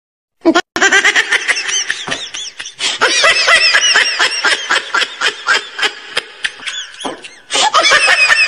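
Loud, high-pitched laughter in rapid repeated bursts. It breaks off about seven seconds in and starts again briefly near the end.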